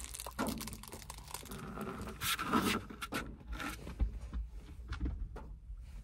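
A dog moving about inside a van with a plush toy in its mouth: scattered rustles and light knocks, with a few low thumps about four to five seconds in.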